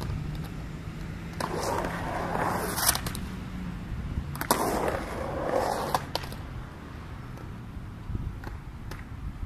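Skateboard wheels rolling across a concrete skatepark in two passes, each a rising and falling rumble that begins and ends with a sharp clack as the board meets the ramps. Between and after the passes only quieter rolling and faint knocks are heard.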